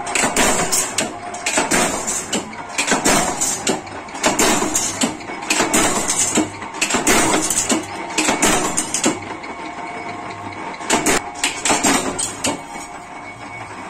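Mechanical power press blanking spoons out of steel strip: a steady run of sharp metal clanks, about one and a half strokes a second. The strokes ease off for a couple of seconds about nine seconds in, then a few more follow.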